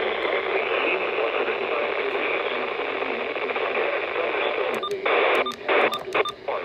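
Radio static: a steady hiss with no voice, cut off above and below like a narrow radio channel, broken by several sharp clicks and brief dropouts about five to six seconds in.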